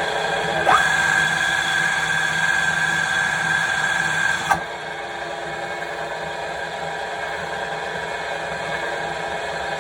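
Alzmetall pillar drill running with a steady mechanical hum. Less than a second in, a high whine rises and holds for about four seconds, then cuts off with a click, leaving the plain running hum.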